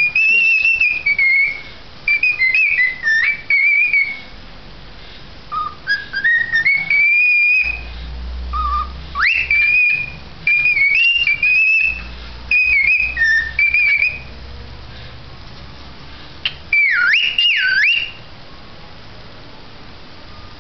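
Cockatiel whistling its song: a string of clear whistled phrases that glide up and down, broken by short pauses, closing with two swooping notes about three-quarters of the way through, after which it stops.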